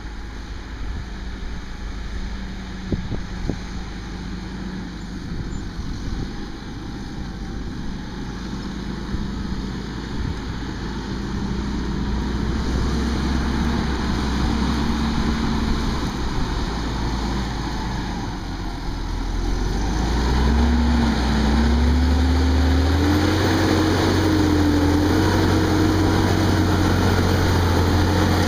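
Fendt 936 tractor's six-cylinder diesel engine working under load as it pulls a seven-furrow plough, growing steadily louder as it draws near. In the last third its engine note rises and wavers.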